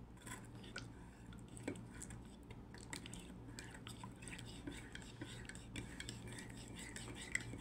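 Serving spoon scraping and clinking against a metal cooking pan as shrimp gravy is scooped out, a scatter of light taps and scrapes over a low steady hum.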